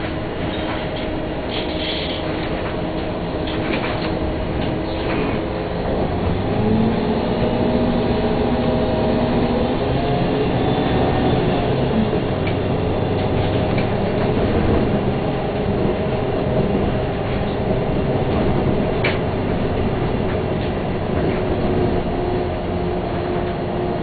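Engine and road noise inside a moving vehicle: a steady rumble with faint humming tones that drift up and down in pitch as it drives.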